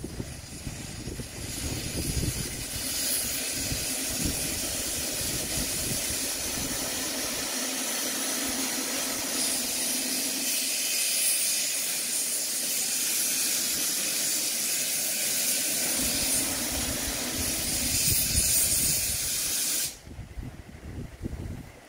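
Steady hiss of steam venting from a 15-inch-gauge miniature steam locomotive, cutting off suddenly near the end.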